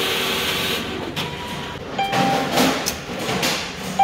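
Bank cash deposit machine's internal mechanism whirring and rattling as it finishes the deposit and prints the receipt, loudest in the first second, then easing. A short electronic beep sounds about two seconds in, and another starts at the very end, the signal that the card is coming out.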